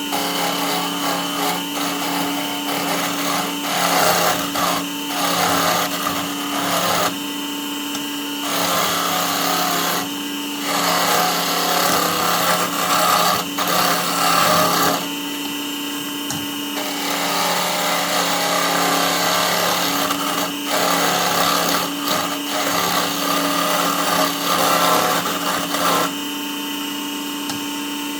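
Small benchtop wood lathe running with a steady motor hum while a turning tool cuts the spinning wood in repeated stretches of scraping, broken by short pauses where only the motor is heard.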